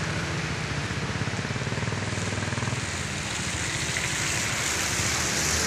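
Rain falling at a wet road junction, with steady low traffic rumble. A car's tyres hiss on the wet asphalt, growing louder over the last couple of seconds as it approaches.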